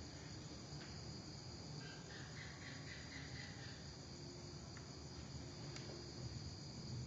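Faint, steady high-pitched insect trilling over a low background hum, with a few faint clicks.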